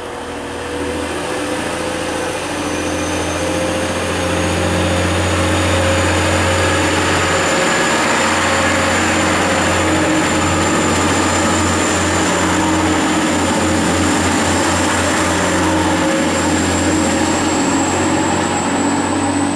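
Class 185 diesel multiple unit pulling away and accelerating past close by. Its underfloor diesel engines run loud, with a whine that rises slowly in pitch as it gathers speed; the loudness builds over the first few seconds.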